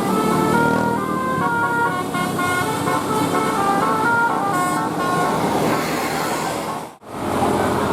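Bus 'telolet' horn playing a quick melody of short, stepped notes over a noisy background. It cuts off abruptly about seven seconds in, and the sound then resumes.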